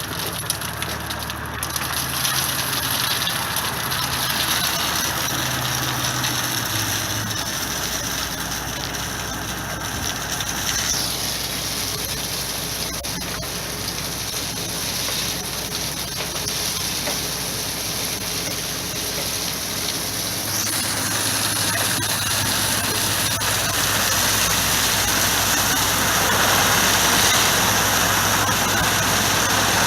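A large engine running steadily under a continuous rushing noise, which grows louder toward the end.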